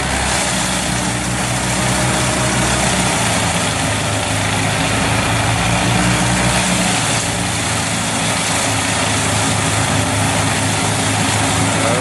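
Large crane-fed wood chipper running under load as a whole conifer tree is drawn in and chipped: a dense, steady grinding noise over the chipper's engine hum. The engine note shifts about three seconds in and again around seven seconds as the load changes.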